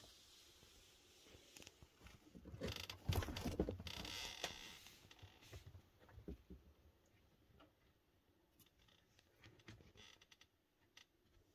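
Rustling and scraping with small clicks and knocks, loudest from about two and a half to five seconds in, then only scattered faint ticks.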